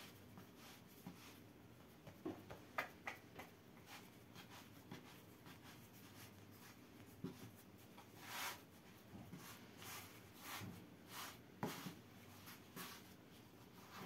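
Faint soft rubbing and light taps of hands rolling a thin sheet of dough into a log on a wooden board, then coiling it into a round, with one longer brushing swish about halfway through.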